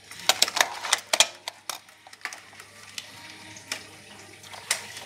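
Sharp clicks and knocks of toy cars being handled and set into a plastic two-lane car launcher: a quick run of them in the first two seconds, then a few scattered ones.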